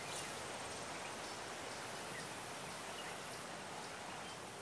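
Quiet outdoor ambience by a river: an even background hiss with a thin, very high insect drone that comes and goes, and a few faint bird chirps.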